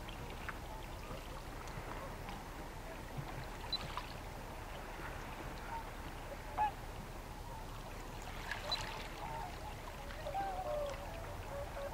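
Waterfowl calling: a few scattered short honking calls, then a run of them in the last few seconds, over a steady low rumble.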